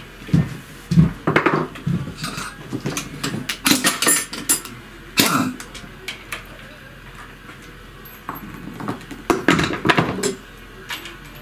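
Metal clinks and clatter of a socket wrench on a bolt being screwed into the end of a walk-behind tractor's power take-off shaft. The clinks come in irregular bursts, with a quieter pause in the middle.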